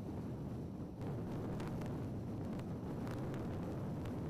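Steady low rumble of a vehicle driving in blizzard wind, with faint light ticks scattered through it.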